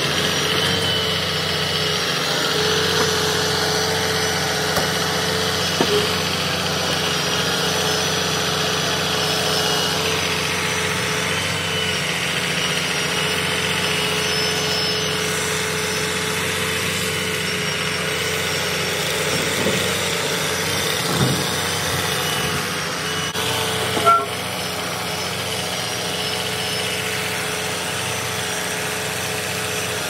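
Diesel engine of a Mack grapple-loader truck running steadily while its hydraulic knuckle-boom crane is worked, with a few short knocks; the loudest comes about 24 seconds in.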